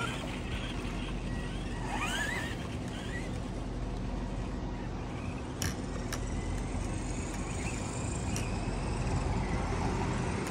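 Steady outdoor rumble with a rising electric whine about two seconds in from an Arrma Senton 4x4 RC truck's motor as it speeds off across the lawn. A few sharp clicks come in the middle, and a road car passes near the end.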